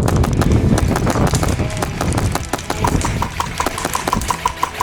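Airsoft guns firing in rapid bursts of sharp clicking shots, over a low rumble. From about halfway through, a quick string of short high-pitched pips repeats about six times a second.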